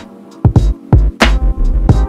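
Background music with a drum beat: low kick-drum hits and sharp snare-like strikes over held notes.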